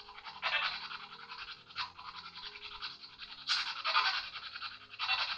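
Spirit box sweeping through radio static: a steady fluttering hiss broken by several short, louder bursts of noise. Soft sustained background music sits underneath.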